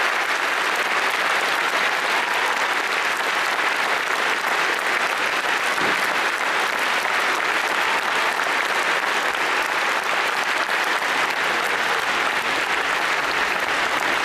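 Theatre audience applauding steadily after a folk dance performance ends.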